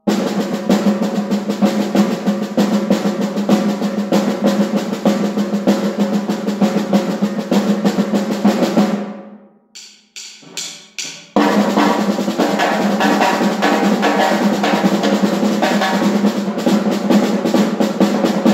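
Two snare drums played together as a duet: a dense run of rapid stick strokes on the heads. About halfway through, the playing breaks off for roughly two seconds with only a few scattered strokes, then both drums come back in at full volume.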